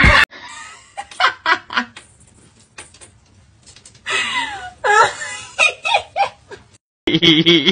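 People giggling and laughing in short bursts, about a second in and again from about four to six seconds, with quiet gaps between.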